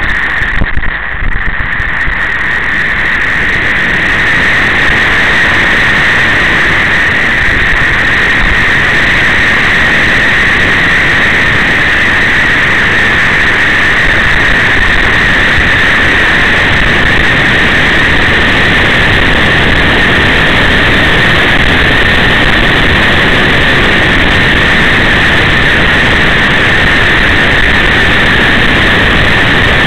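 A vehicle driving at a steady speed: a loud, even rush of wind and engine noise on the microphone, holding without change.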